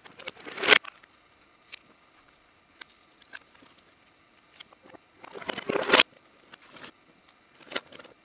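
A long wooden pole jabbed into a pile of dry bones and hide, giving two bursts of crackling and rattling, one at the start and one about five seconds in, with a few light clicks and knocks between.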